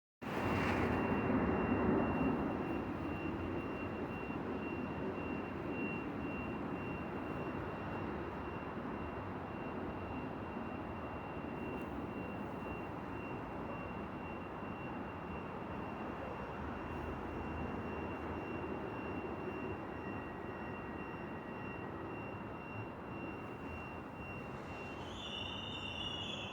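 VR Snabbtåg passenger train pulling out, a steady rumbling run with a thin high whine over it, loudest about two seconds in and slowly easing after that. A short warbling chirp sounds near the end.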